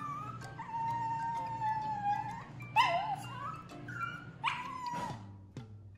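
Chihuahua whining for a toy it cannot reach: a short high cry, then one long drawn-out whine, then two shorter cries that rise and fall, about halfway through and about three-quarters through.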